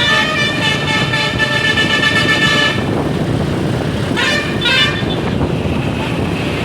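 Tour bus's Basuri 'telolet' musical air horn playing several notes together, cutting off about three seconds in. A short rising sweep follows a second and a half later, over steady engine and road noise.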